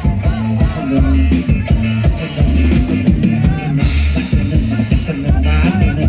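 Live band music with a drum kit and a heavy bass beat.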